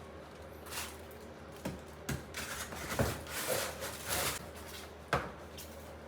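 Handling noises: several sharp knocks and clicks with bursts of rustling in between, over a steady low hum.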